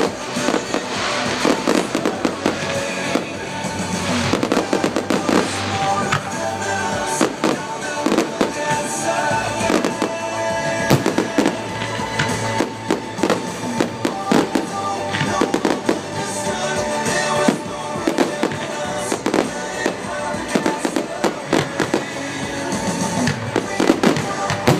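Fireworks display with many shells bursting in quick, irregular succession, over music.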